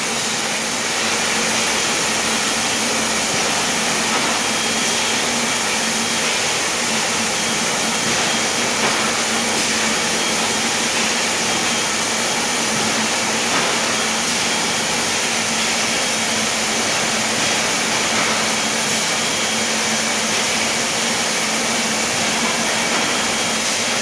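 Water pouring in a steady stream from a flow meter's outlet into a plastic bucket of water: a constant rushing splash, with a steady low hum underneath.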